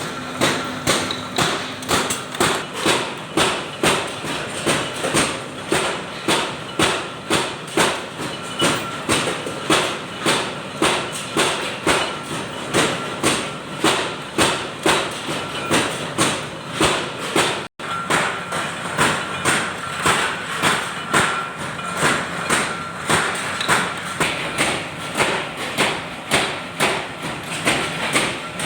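Forging hammer striking hot metal in a steady rhythm, about two blows a second, each blow ringing briefly.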